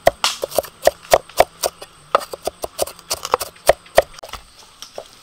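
Cleaver mincing shallots on a wooden chopping board: a quick, even run of sharp knocks, about four a second, growing sparser and fainter near the end.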